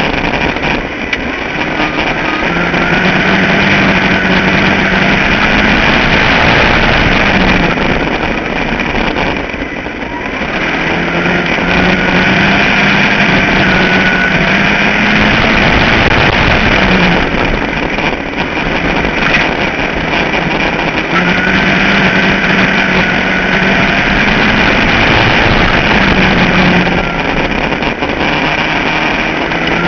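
Ford Focus midget race car's four-cylinder engine running hard on a dirt oval. The note holds high on the straights, then drops and climbs back about every nine seconds as the car lifts for the turns and gets back on the throttle, with heavy wind noise over it.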